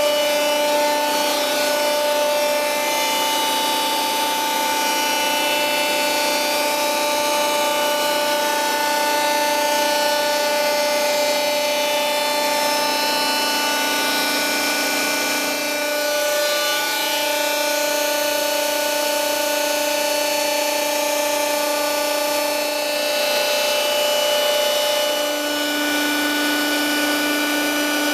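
Hydraulic pump unit of an Alpha 60-ton compacting press running with a steady whine. The pitch drops slightly a little past halfway and comes back up near the end.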